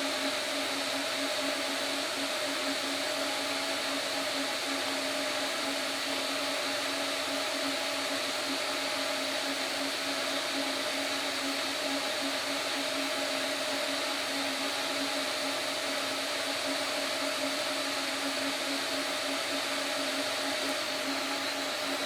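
Metal lathe running steadily under its motor, a constant hum with a steady high whine and no change in speed.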